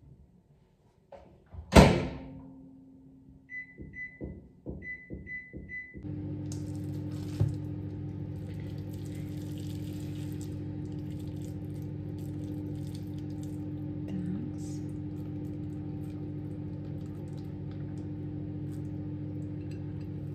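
Microwave oven door shut with a thunk, then a quick series of short keypad beeps as the time is set, and the microwave starts up and runs with a steady hum.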